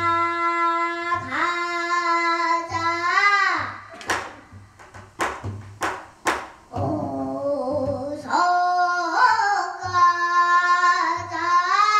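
A young girl singing pansori, holding long notes that bend and waver at the ends of phrases. Between phrases, about four to six seconds in, a few sharp strokes on a buk barrel drum.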